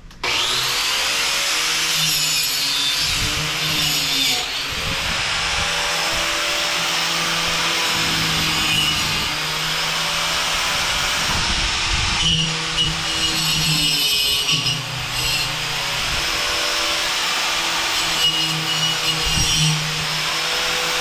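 Angle grinder with a wire wheel starting up and brushing fresh welds on steel bars to clear spatter and slag. The motor's pitch sags and recovers again and again as the wheel is pressed into the metal.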